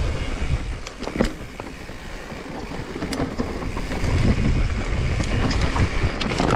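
Specialized Stumpjumper Evo mountain bike rolling fast down a dirt trail: a steady low rumble of tyres and wind on the microphone, with sharp clacks and rattles from the bike over bumps.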